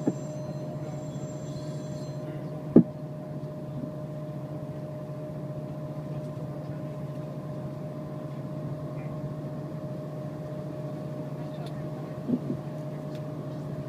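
Steady low hum of heavy container-terminal machinery, the berthed ship and its gantry cranes, holding two constant pitches. One sharp knock about three seconds in, and a fainter double thud near the end.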